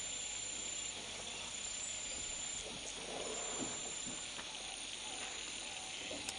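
Steady outdoor insect noise, a hissing chorus with a thin high continuous tone running through it.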